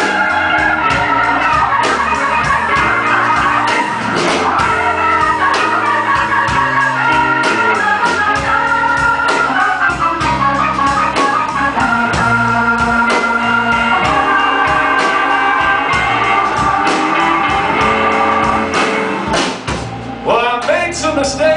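Live blues band playing an organ solo: held and shifting organ chords over bass and a steady drum beat. Near the end the guitar comes back in.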